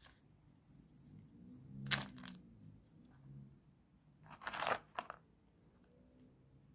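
Small plastic action-camera parts handled close to the microphone as the lens barrel is worked in its cracked mount: two short scraping crackles, about two seconds in and again at about four and a half seconds, with faint handling rumble between.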